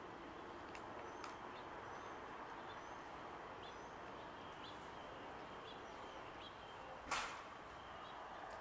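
Quiet outdoor ambience: a steady, even rush with faint, scattered bird chirps and a few faint ticks, broken by one brief loud whoosh about seven seconds in.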